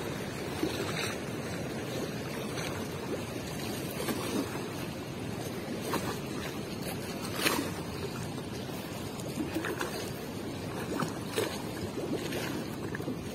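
River water washing against a concrete bank, with a few brief splashes and ticks as a cast net is hauled in through the shallows.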